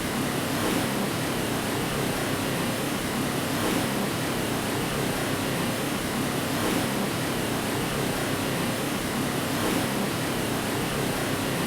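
Continuous white noise for lulling a baby to sleep: a steady, even hiss with no tone or rhythm beyond a faint swell about every three seconds.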